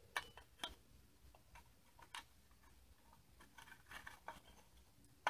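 Faint, scattered clicks and taps of metal support poles being handled and fitted end to end, with a small cluster of clicks a little before the end.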